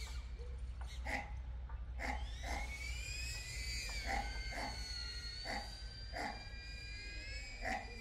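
DJI Avata FPV drone's motors and ducted propellers whining, a steady high tone that bends up and down in pitch as the drone manoeuvres. About eight short animal calls at irregular intervals sound over it.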